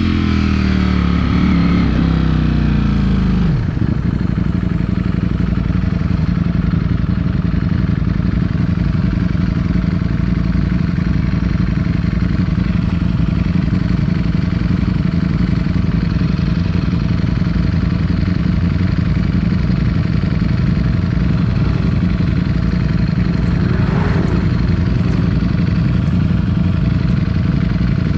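Ducati Streetfighter V4S's 1103 cc V4 engine slowing down, its pitch falling over the first few seconds, then running steadily at a low idle.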